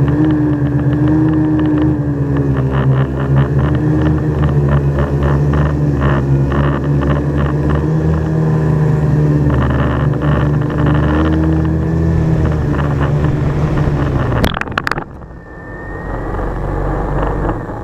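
Quadcopter drone's propellers humming in flight, the pitch wavering as the motors adjust. About fifteen seconds in there are a few sharp knocks as it comes down on the grass, and the hum stops.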